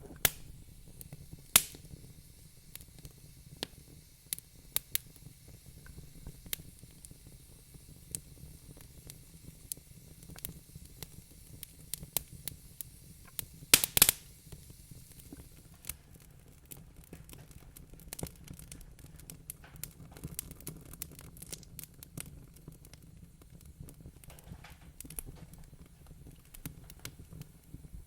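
Wood fire crackling in a fireplace: irregular sharp pops and snaps over a soft low rumble, with a loud cluster of pops about halfway through.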